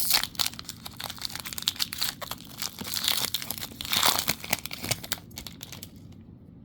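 Plastic wrapper of a trading-card booster pack crinkling and crackling as it is torn open and handled; the crackling stops about five and a half seconds in.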